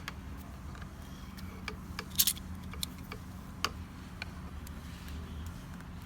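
Pliers clicking and scraping on a pressure washer's nozzle fitting as it is tightened: scattered small ticks, the loudest a quick cluster about two seconds in, over a steady low hum.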